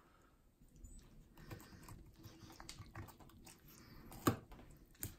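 Faint scattered wet clicks and taps of a knife and fingers working through a gutted northern pikeminnow on paper towel, with a sharper click about four seconds in and another near the end.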